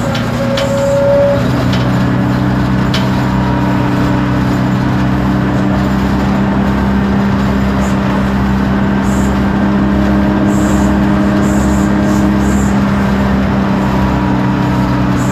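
Isobus City 1200 bus's MAN D0836 LOH diesel engine running at a steady pitch with its ZF Ecomat automatic gearbox, as the bus drives on. A brief higher whine sounds about a second in.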